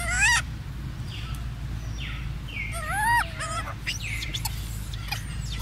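Macaques calling: high, wavering squeals whose pitch rises and falls, loudest right at the start and again about three seconds in, with shorter chirps between. A steady low rumble lies underneath.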